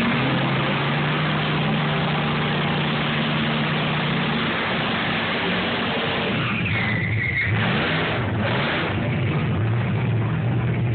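1972 Ford Mustang drag car doing a burnout: the engine is held at high revs while the rear tires spin on the track, a loud, steady mix of exhaust and tire noise. The engine note breaks briefly a little past the middle.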